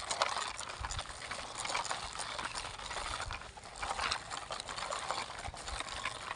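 Plastic toy construction vehicle being driven over rough ground, rattling and clicking with irregular light knocks.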